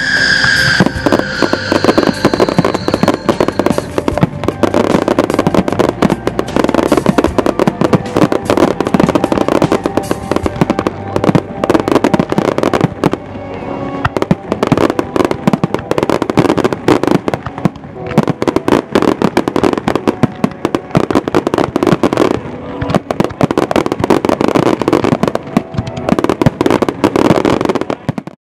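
Fireworks display: a dense, continuous barrage of bangs and crackles that cuts off suddenly near the end.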